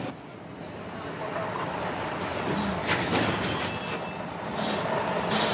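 MAN truck's engine running as the lorry comes to a halt, with a brief high squeal about three seconds in and two short hisses near the end.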